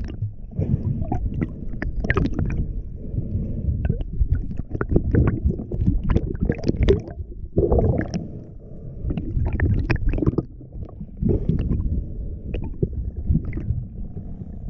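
Muffled underwater rumble of water moving against a camera housing as a diver swims along a lake bottom, with scattered clicks and knocks. A short gurgle comes about eight seconds in.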